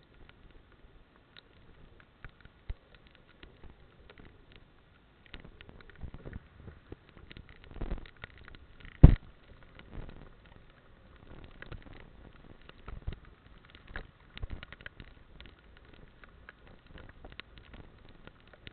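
Irregular taps and crackles of rain striking a motorcycle-mounted camera while riding in a downpour, with one loud knock about nine seconds in.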